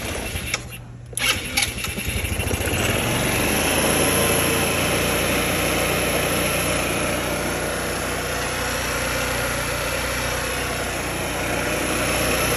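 Single-cylinder four-stroke scooter engine of a Kymco Like 125, freshly rebuilt and bored to 150 cc, on its first start: it cranks briefly with a few sharp stutters, catches about two seconds in and settles into a steady idle.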